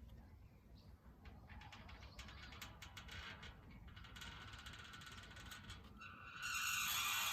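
Rusty metal gate on its hinges: faint light clicks and ticks through the middle, then a louder, harsher creak of the hinges starting about six and a half seconds in.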